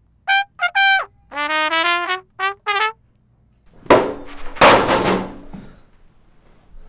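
Trumpet playing a short phrase of several notes, one held for about a second, then stopping. About a second later comes a loud burst of rustling and knocking handling noise lasting nearly two seconds.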